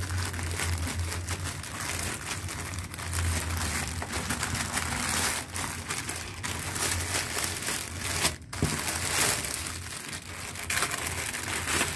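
A thin black plastic poly mailer bag crinkling and rustling as hands rip it open and pull out clothes in clear plastic wrapping, with a steady low hum underneath.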